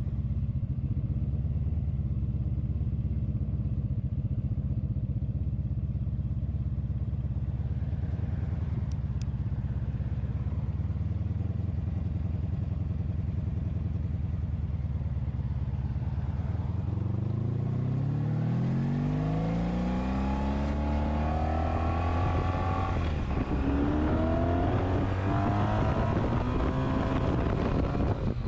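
1983 Honda Sabre's V4 engine running steadily under way, then its pitch rising twice in the last third as the motorcycle accelerates.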